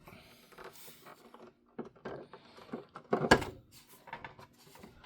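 Small plastic clicks, taps and rattles from handling plastic toy parts, with a louder clatter about three seconds in.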